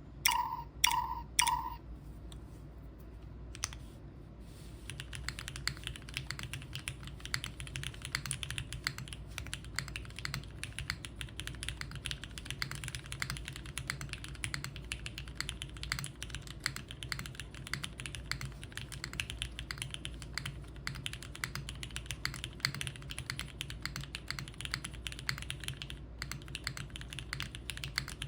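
Typing on a Krush65 mechanical keyboard with Cherry MX HG Black linear switches, an aluminum O-ring-mounted plate and JTK Classic keycaps: fast, continuous key strokes from about five seconds in. Three short beeps sound in the first two seconds.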